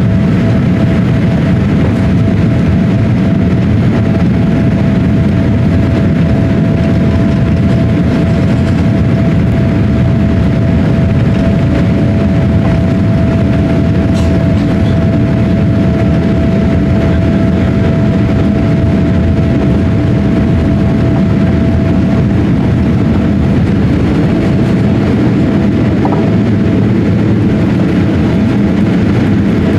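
Boeing 787-8 turbofan engines at takeoff thrust, heard inside the cabin as a loud, steady roar with rumble as the jet accelerates down the runway. A thin steady whine runs above the roar and fades out about three quarters of the way through.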